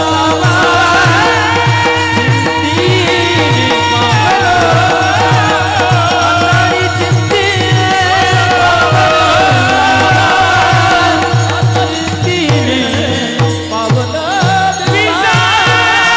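Devotional abhang sung in a Marathi kirtan: voices holding long, gliding notes over a steady rhythm of low drum strokes.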